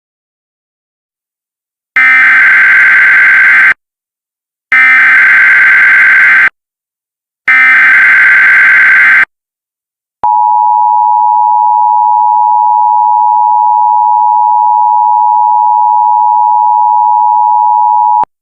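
Emergency Alert System SAME header: three loud bursts of warbling digital data tones, each under two seconds, starting about two seconds in. After a short pause comes the EAS two-tone attention signal (853 and 960 Hz together), held steady for about eight seconds and cut off sharply, announcing an emergency alert broadcast.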